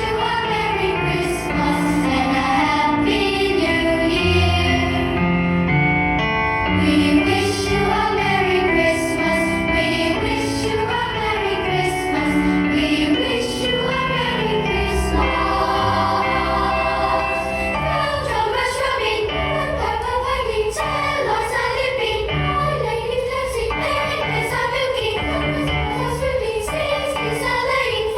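A choir singing a Christmas medley over a backing track with a steady beat.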